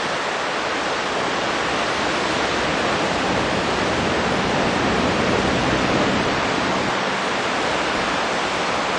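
Steady rushing of river water, an even noise that does not change, with no bird calls standing out.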